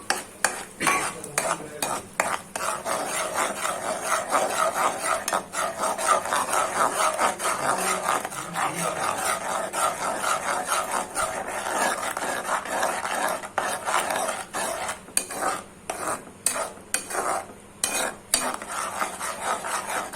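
Spatula stirring and scraping a pan of masala frying in ghee with tomato paste, with a steady sizzle and frequent clicks against the pan; the strokes turn into separate sharp knocks near the end.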